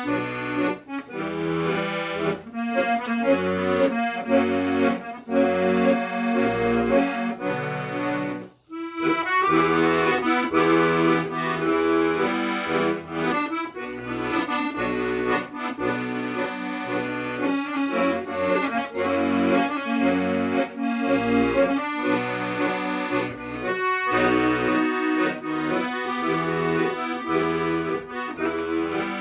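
Instrumental music: a tune of pitched notes over a rhythmic bass line, with a short break about nine seconds in.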